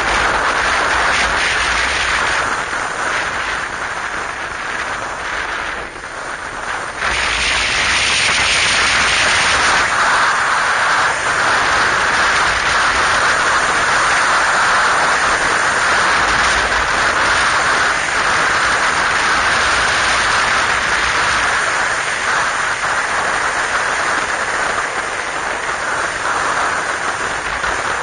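Wind rushing over the microphone of a camera on a moving motorcycle, a steady loud hiss that drops for a few seconds about six seconds in and then comes back up.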